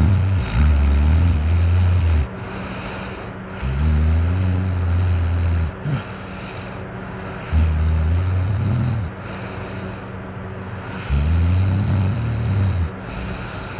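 A man snoring loudly in deep sleep after drinking alcohol: four low, rasping snores, each about two seconds long and coming every three and a half to four seconds. An electric fan runs steadily underneath.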